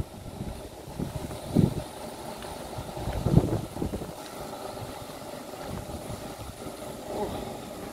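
Steady low mechanical hum, engine-like, with two brief louder low bumps about one and a half and three and a half seconds in.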